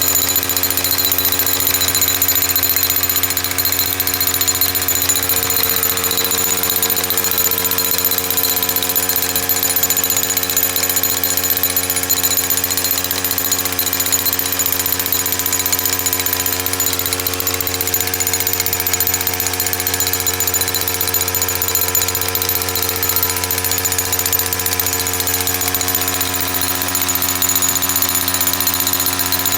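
Gas-powered jackhammer running steadily without a break, pounding an 8-foot grounding rod into the ground.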